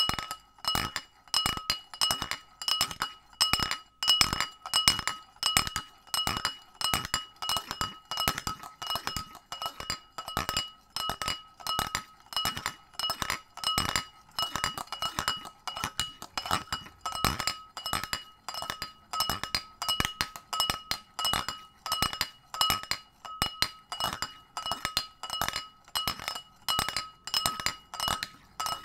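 A mobile phone knocking against the inside of a pint glass in a steady, rhythmic pattern. Each knock sets the glass ringing at the same few clear pitches.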